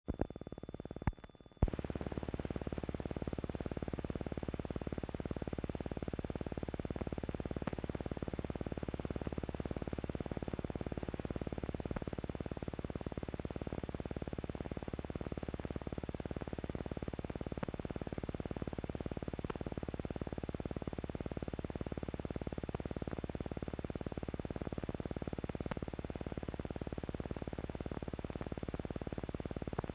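Steady hiss and low hum of an old film soundtrack with no recorded sound on it, with faint scattered clicks and a few sharp pops in the first two seconds.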